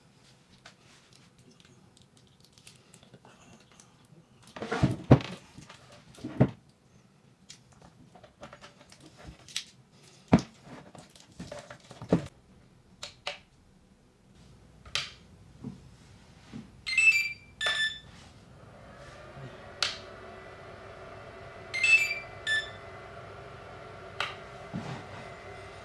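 Plastic clicks and knocks as battery leads are plugged into a Traxxas EZ-Peak LiPo charger and its buttons are pressed. The charger answers with two clusters of short high beeps, the second about five seconds after the first. A steady low hum comes in about halfway through.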